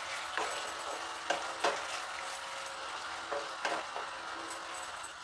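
Chicken pieces sizzling in oil in a pan while a spatula stirs them: a steady frying hiss with several short scrapes and knocks of the spatula against the pan. The water has cooked off and the oil has separated, so the masala is in its dry-frying (bhuna) stage.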